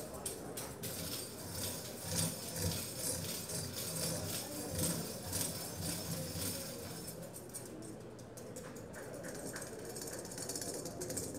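Pandeiro played very softly, its metal jingles shimmering and rattling lightly in a quiet passage. The rattle grows fainter in the second half.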